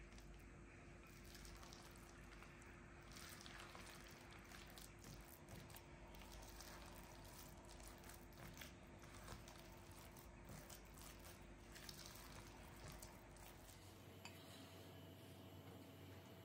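Faint wet squishing and scraping of a silicone spatula stirring a thick batter of grated onion, cheese and egg in a glass bowl, in small irregular clicks.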